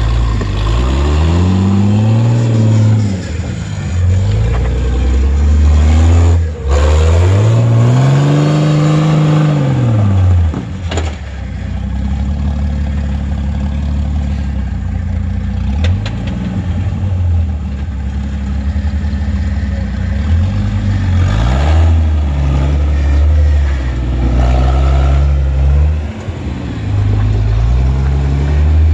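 Lifted Jeep Wrangler's engine revving up and down in repeated swells as it crawls over boulders, two long rises and falls in the first ten seconds, then shorter throttle blips.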